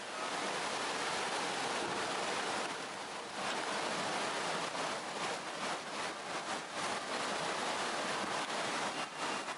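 Steady rush of turbulent, churning water, with a few slightly louder surges.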